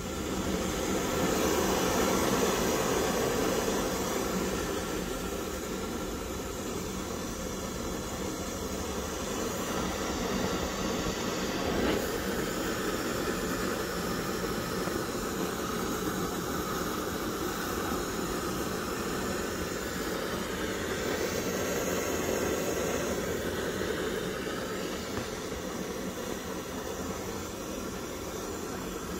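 Pressurized kerosene stove's burner running on waste cooking oil, its flame making a steady rushing hiss. The hiss grows louder about a second in, as the control knob is turned, and then holds level.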